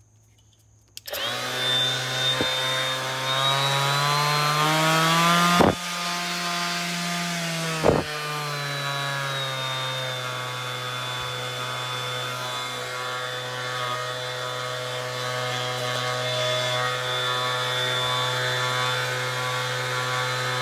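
DeWALT DCW210 brushless random orbital sander running free in the air, starting about a second in with a steady motor whine. Its pitch rises as the speed dial is turned up, with two sharp knocks a couple of seconds apart, then drops back and holds steady. Near the end it stops abruptly under its electronic brake.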